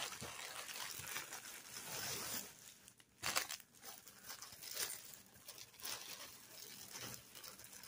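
Clear plastic packaging bag crinkling and rustling irregularly as a stack of paper napkins is pulled out of it and the bag is pushed aside.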